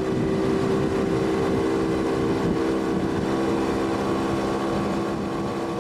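Outboard motor on a small aluminium boat, running steadily while the boat is under way, easing off slightly near the end.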